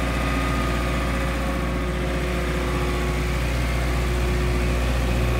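MQ Power WhisperWatt 25 kW diesel generator running steadily with an even, low engine hum.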